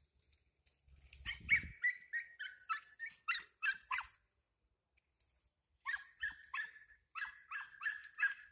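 Hunting dog yelping in quick runs of short, high-pitched yelps, about three a second, in two bouts with a pause of about two seconds between them.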